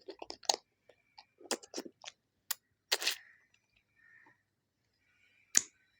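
Irregular close-miked clicks and short crackles, bunched in the first half, then a gap and one sharp click near the end.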